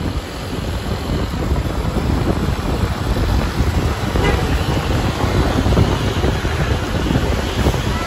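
A large tour bus driving close by on the road, its running and road noise mixed with heavy wind buffeting on the microphone.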